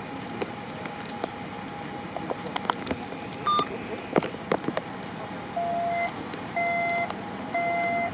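Electronic beeping: one short high beep, then past halfway a steady mid-pitched beep repeating about once a second, each beep about half a second long. Under it is a steady hum of traffic noise with scattered small clicks and knocks.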